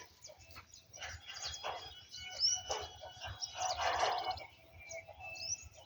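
Faint bird chirps, a few short high glides, with scattered short muffled noises in the background.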